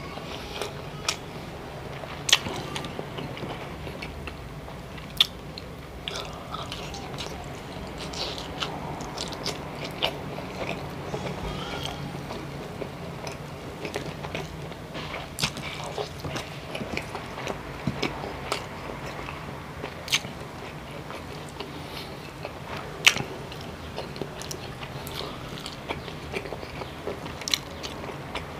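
A person chewing and biting mouthfuls of chicken-innard adobo (gizzards, livers and immature eggs) with rice: steady wet chewing broken by frequent sharp mouth clicks and smacks.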